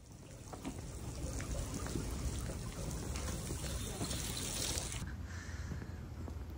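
Water running and trickling in a roadside gutter, a steady hiss that drops abruptly about five seconds in.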